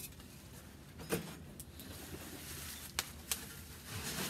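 Handling noise from a small steel wood stove and its bubble-wrapped parts being taken out of the firebox: a few light clicks and knocks, about a second in and twice around three seconds.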